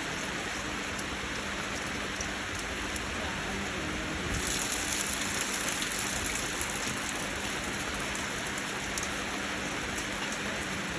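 Steady rain falling, a little heavier for a few seconds in the middle.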